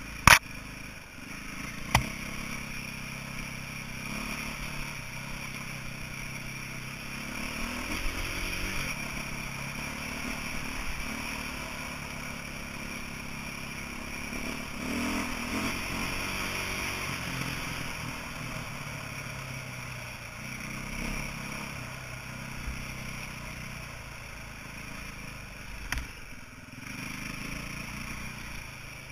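A 2008 KTM 450 EXC's single-cylinder four-stroke engine running under way, its pitch rising and falling with the throttle. A few sharp knocks, about two seconds in and again near the end.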